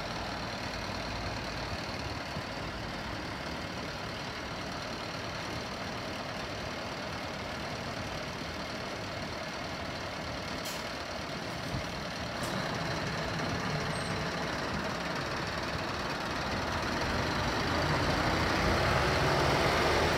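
Truck's diesel engine running steadily at idle, growing louder over the last few seconds.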